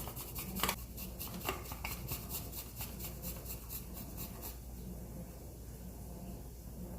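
Garlic grated on a handheld zester: quick, rasping scrape strokes, about four a second, that die away about four and a half seconds in, over a low steady hum.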